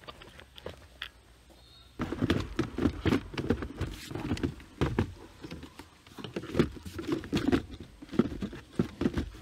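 Items being handled in a car glovebox: a plastic wet-wipes packet, papers and a USB cable pushed in and shifted about, giving irregular rustling, clicks and taps. Faint at first, busier and louder from about two seconds in.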